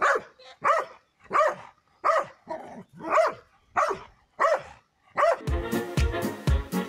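A dog barking over and over, about nine barks evenly spaced roughly two-thirds of a second apart. Music with a steady beat comes in at about five and a half seconds.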